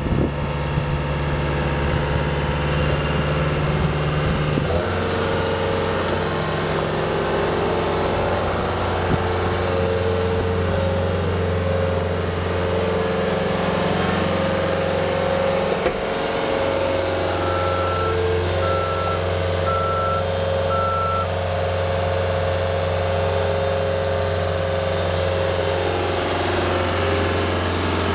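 Caterpillar 252B skid steer's Cat 3044C four-cylinder diesel running steadily, its note shifting about five seconds in and again around sixteen seconds. About two-thirds of the way through, its backup alarm beeps four times, about once a second.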